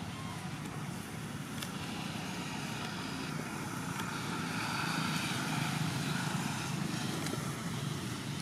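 Steady outdoor background rumble, swelling slightly around the middle, with no distinct event standing out.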